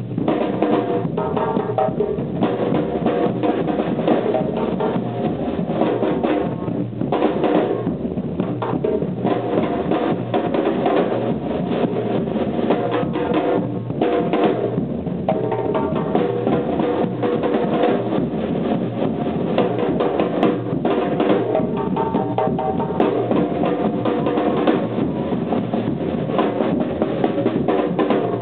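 Live percussion ensemble drumming a steady, driving groove: large barrel bass drums, a hand-played djembe and shoulder-slung drums struck with sticks all playing together without a break.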